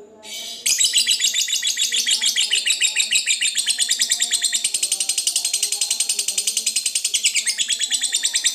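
Lovebird's long ngekek call: an unbroken chatter of rapid, sharp, high notes, many per second. It starts under a second in and keeps going without a pause. This long-duration chattering is prized in fighter lovebirds.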